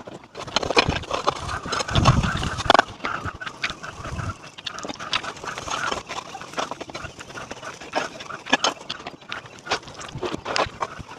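Gumbanzugu dough frying in hot groundnut oil in a frying pan, an irregular crackling and popping over a light sizzle, with a few heavier dull knocks about two seconds in.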